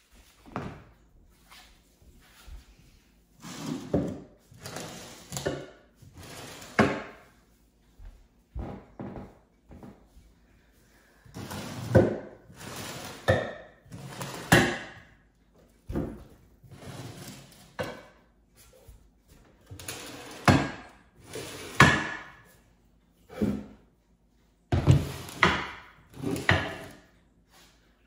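Stoneware crocks being picked up, shifted and set down on a wooden bench and hardwood floor: a long run of irregular ceramic knocks and scrapes, more than a dozen separate clunks.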